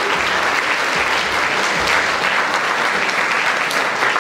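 Audience applauding in a large hall, a steady dense clapping from many hands.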